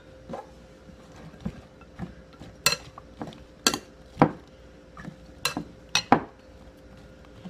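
Tongs tossing thinly sliced zucchini in a glass mixing bowl, clinking against the glass in a string of sharp, uneven clinks, the loudest a little past halfway.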